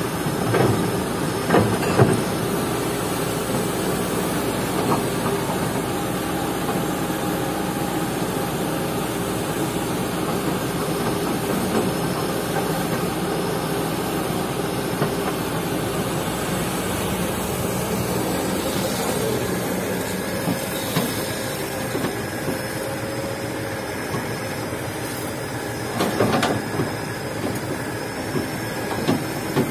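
Kobelco SK200 excavator's diesel engine running steadily under hydraulic load, with a few sharp metallic clanks and knocks from the bucket and gravel, a cluster of them near the end.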